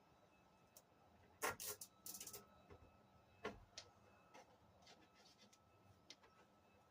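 Scattered light clicks and clinks of small metal hardware and tools being handled while deck bolts and washers are fitted by hand. The loudest click comes about one and a half seconds in, with a quick run of clicks soon after and a few single ones later.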